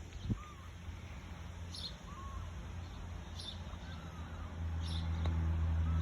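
Faint, high-pitched squeaks from newborn kittens, short chirp-like cries every second or so, over a low steady hum that grows louder about two-thirds of the way in.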